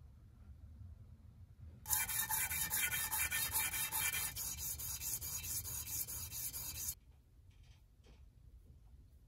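Steel hex nuts rubbed back and forth by hand on 220-grit sandpaper laid flat on a stone countertop, a scratchy sanding sound. It starts abruptly about two seconds in and cuts off about five seconds later.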